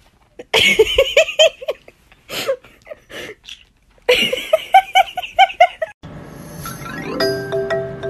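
Two runs of quick, high, bouncing giggling laughter, with a few clicks between them. About six seconds in, light music with chiming, bell-like notes takes over.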